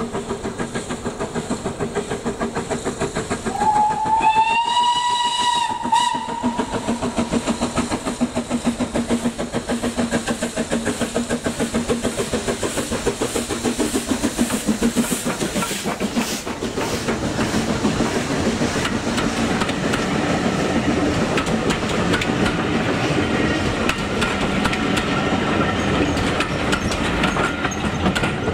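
BR Standard 9F 2-10-0 steam locomotive 92203 Black Prince running with a train, making a fast, steady, rhythmic beat. Its whistle sounds about four seconds in: one slightly rising note held for about two seconds, then a short second toot. From about halfway the running noise of the train grows rougher and denser.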